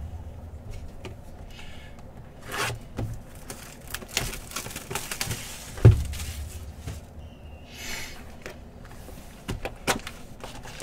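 Cardboard trading-card hobby box being handled and opened: rustling and scraping of cardboard with scattered clicks, and a single thump about six seconds in as the box is set down on the table.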